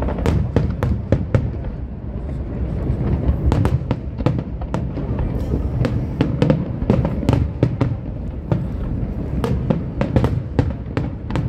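Aerial fireworks bursting: rapid, irregular bangs and crackles, several a second, over a steady low booming.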